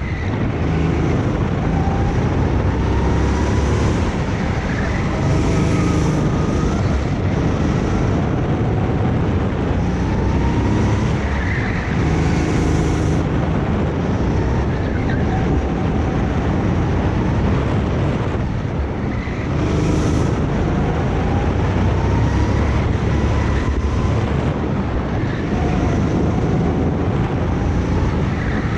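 Go-kart engine running on track, its pitch climbing for several seconds as it accelerates and dropping off as it slows, over and over through the lap, with wind noise across the microphone.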